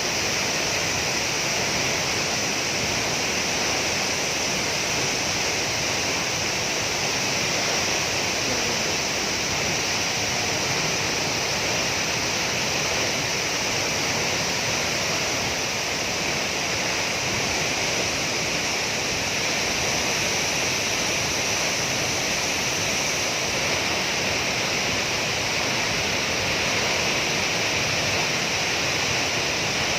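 Waterfall: a steady, unbroken rush of falling water at an even level throughout.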